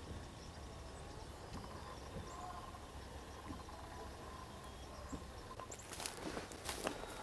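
Quiet woodland background, then about six seconds in, footsteps start crunching on the forest floor at a walking pace.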